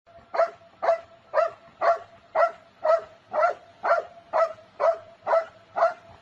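A dog barking in a steady, even rhythm, about two short barks a second.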